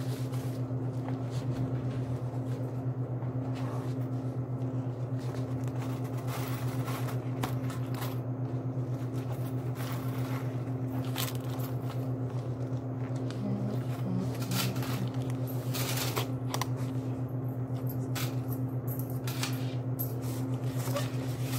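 A steady low hum throughout, with scattered clicks, taps and rustles from a phone and a wallet being handled on a counter close to the microphone.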